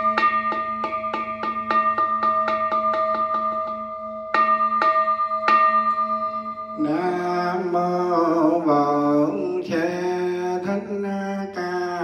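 A Buddhist bell struck in a quickening roll, its ringing tones held under the strikes. The roll stops about four seconds in and is followed by three single strikes. From about seven seconds a man chants in a steady, drawn-out tone.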